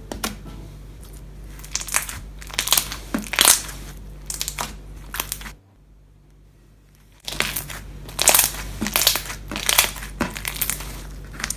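Clear, jelly-thick foam slime being squeezed and pressed, its trapped air bubbles bursting in irregular crackles and pops. The sound stops for about a second and a half near the middle, then starts again.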